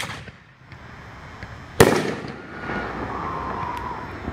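A 1.5-inch aerial canister shell bursts with a single loud bang about two seconds in, just after its launch crack at the very start. The burst's echo rolls on for about two seconds.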